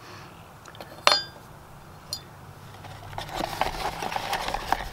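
A metal part of an outboard water pump repair kit set down on a wooden bench with one sharp, briefly ringing clink about a second in and a smaller tick a second later. From about three seconds in, rustling and crinkling of the cardboard kit box and packaging as parts are taken out.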